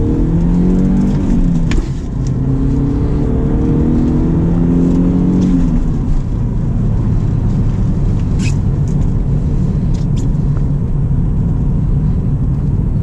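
BMW E36 3 Series Compact's engine heard from inside the cabin, accelerating with the revs climbing. The revs drop briefly for a gear change about two seconds in and again about six seconds in. After that the car cruises with a steady engine and road rumble.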